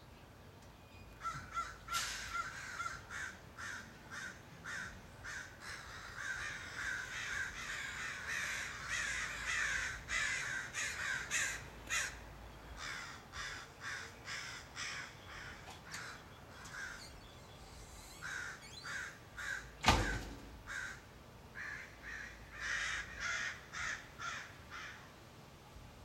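A flock of American crows cawing over and over, squabbling, with many calls overlapping thickly for several seconds before thinning to scattered caws. A single sharp knock, the loudest sound, stands out about two-thirds of the way through.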